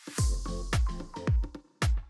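Electronic background music starting up, with a beat of deep kick-drum hits that drop in pitch.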